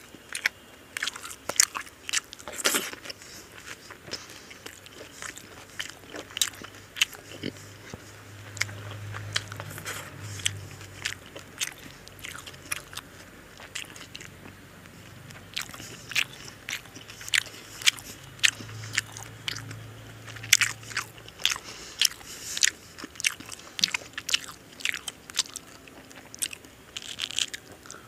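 Close-miked chewing of a mouthful of mutton biryani with raita: wet mouth clicks, lip smacks and crunches, several a second and irregular. A faint low hum runs under it through the middle.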